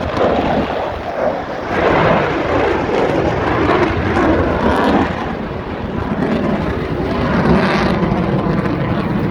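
Jet noise from an F-22 Raptor's twin Pratt & Whitney F119 turbofans as the fighter makes a pass. It is a loud, continuous roar that swells a couple of times and turns deeper near the end.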